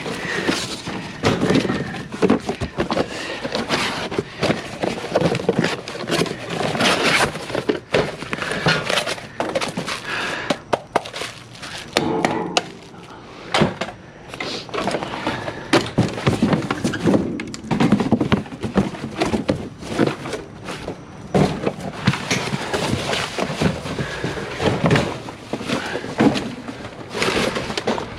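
Scrap being rummaged through and tossed around inside a metal dumpster: a steady run of thunks, knocks and clatter, with some breaking, easing briefly about halfway.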